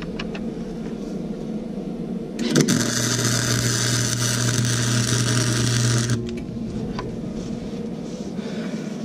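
Flux-core wire-feed welder striking an arc and laying one weld bead over a crack in an exhaust manifold: a steady crackling hiss with a low hum, starting a couple of seconds in and lasting about three and a half seconds.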